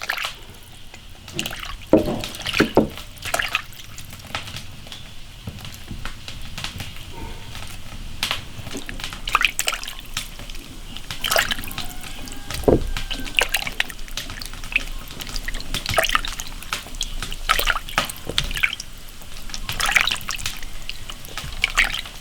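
Water splashing and dripping as a whole air-dried chicken is washed by hand in a basin of hot water, in irregular splashes and knocks, with one louder thump about halfway through.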